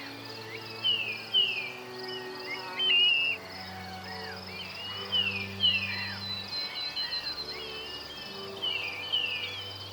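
Common nightingale singing: pairs of quick falling whistled notes, about three times, mixed with warbled phrases, over a steady chirring of crickets.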